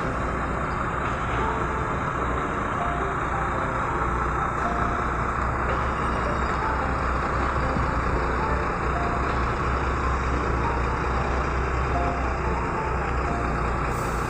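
Heavy diesel machinery at a concrete pour running steadily: a continuous low engine rumble with a hiss of noise above it.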